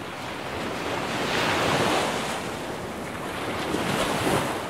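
Ocean surf washing onto the beach, swelling twice and easing off, with some wind on the microphone.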